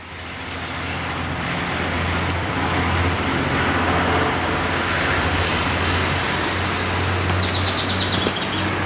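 Steady road-traffic noise with a constant low rumble, fading in from silence at the start.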